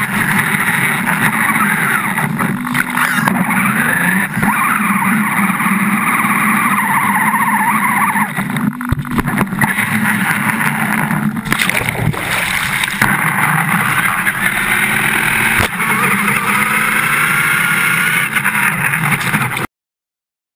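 Radio-controlled car's motor whining, its pitch rising and falling with the throttle, as it drives across wet sand and through shallow lake water, with water churning and splashing. The sound cuts off suddenly near the end.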